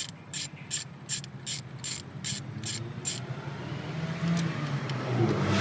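Hand ratchet wrench clicking in short even strokes, about eight clicks at a steady pace, stopping about three seconds in: a fastener being loosened on the engine's ignition distributor.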